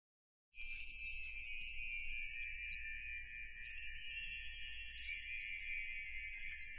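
Shimmering jingle-bell and chime sound, high-pitched and continuous, starting abruptly about half a second in.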